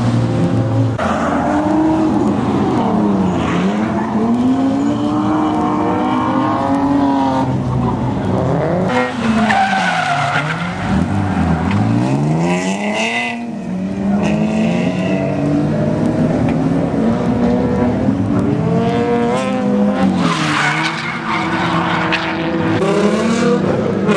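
Drift cars' engines revving hard, pitch climbing and dropping again several times as the drivers work the throttle, with tyre squeal as the cars slide.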